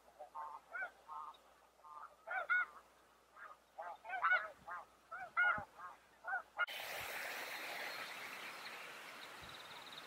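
Snow geese honking: a run of short calls, several overlapping, loudest in the middle. About six and a half seconds in, the calls cut off and a steady hiss takes over.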